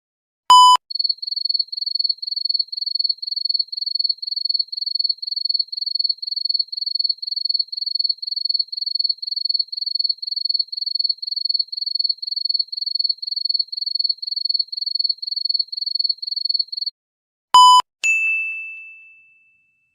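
Cricket chirping sound effect: an even, high-pitched chirp about two and a half times a second for some sixteen seconds. After a short beep comes a single ding that rings and fades away.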